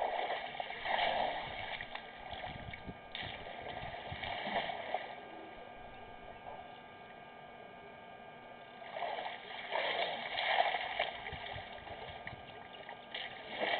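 Elephant bull drinking: water splashing and gushing in swells of one to two seconds, a few seconds apart, over a steady hum.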